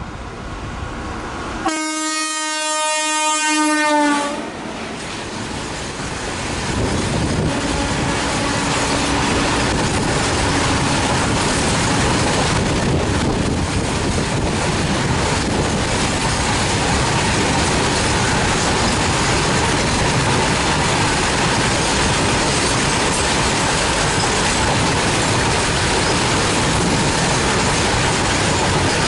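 A WAG-7 electric locomotive sounds one horn blast of about two and a half seconds, its pitch dropping slightly as it ends. Then the freight train of BCNA covered wagons passes close by: a loud, steady noise of wheels running on rail that builds up over a few seconds and then holds.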